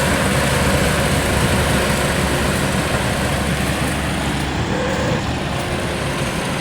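Yanmar GC333 combine harvester running steadily, its engine and machinery giving a continuous mechanical drone.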